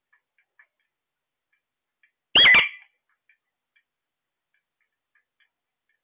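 A caged parakeet gives one short, loud squawk about two seconds in. A few faint ticks sound before and after it.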